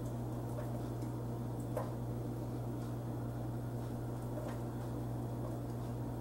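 A steady low hum with a few faint clicks and rustles of a power cable and its connector being handled and plugged in inside a PC case.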